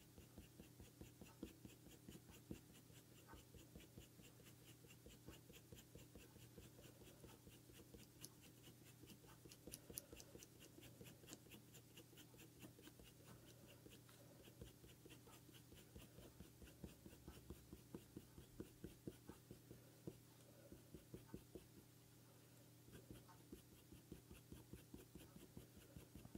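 Faint, quick scratching of a Faber-Castell Polychromos colour pencil shading on hot press paper: many short strokes in a row.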